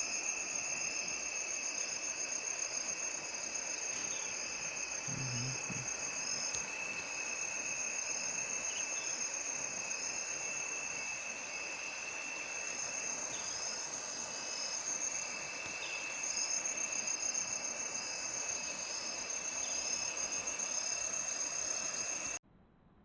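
Steady, high-pitched chorus of insects, made up of two continuous shrill bands, one with a fast pulsing trill, over a steady outdoor hiss. It cuts off abruptly near the end.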